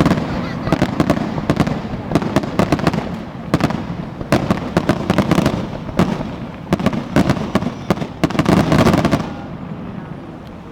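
A fireworks barrage: many shells bursting in quick succession, with sharp bangs and crackles over a low rumble of booms. The barrage stops about nine seconds in.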